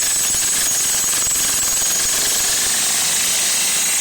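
Generic electric jackhammer running continuously, its chisel bit hammering into and breaking up a concrete slab with a rapid, steady pounding.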